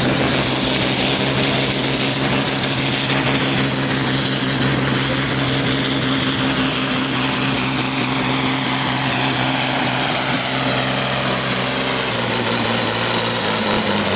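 Volvo BM farm tractor's diesel engine running flat out under full load as it drags a weight-transfer pulling sled, a steady drone. Near the end the engine note drops as the pull ends and the tractor comes to a stop.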